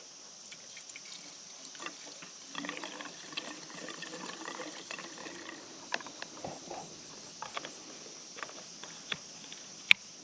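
Steady high-pitched insect chorus of crickets or cicadas, with scattered small clicks and rustling handling noise and one sharp click near the end.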